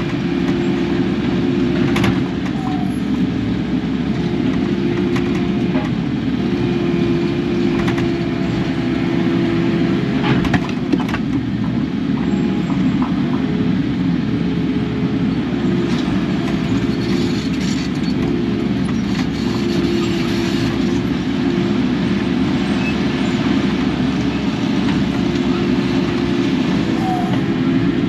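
Kubota KX080 excavator's diesel engine running steadily under work, with a steady whine over it and a few light knocks.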